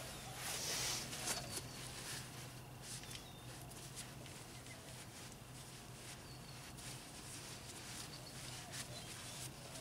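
Faint rubbing and light handling: a brake caliper slide pin being wiped clean with a shop rag, loudest for about a second near the start.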